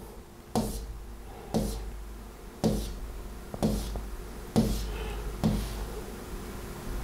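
Six dull knocks about a second apart, each with a deep thud.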